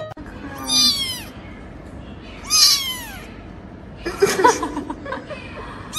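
Young kitten meowing: two high-pitched meows that fall in pitch, about two seconds apart, then a rougher, noisier sound about four seconds in.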